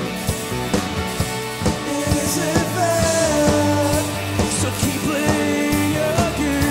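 Live rock band playing: drum kit, electric guitar and electric bass under a lead line of held, bending notes. The lead is played on a harmonica cupped against the vocal microphone.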